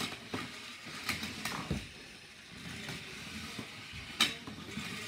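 Toy Hexbug BattleBots robots battling in a plastic arena: small electric motors whirring as the bots drive and the blue bot's disc spins, with sharp plastic clacks as they hit each other and the clear arena walls. The loudest clack comes about four seconds in.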